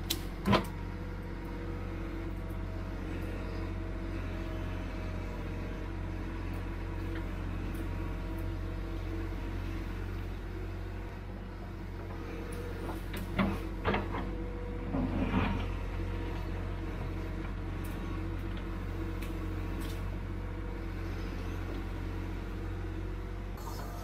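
Diesel engine of a tracked earthmoving machine running steadily under work. Metal knocks come about half a second in, twice at about the middle, and as a short rattling clatter just after.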